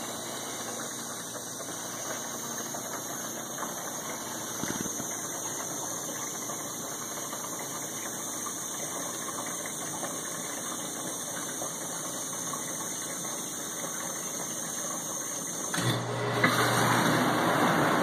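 Whirlpool dishwasher running with a steady rush of water inside the closed tub. About sixteen seconds in, the sound gets louder and a low hum comes in, as the wash motor starts spraying.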